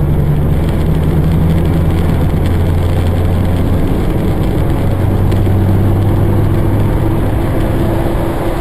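Engine drone and road noise heard inside a vehicle's cabin moving at highway speed: a steady low hum over a wide rush of tyre and wind noise, the hum easing slightly about seven seconds in.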